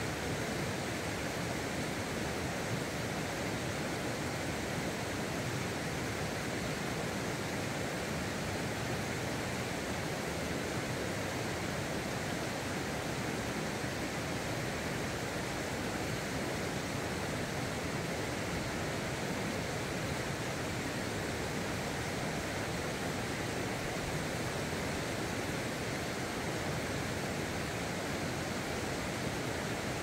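Shallow mountain stream flowing over rocks, a steady, unbroken rush of water.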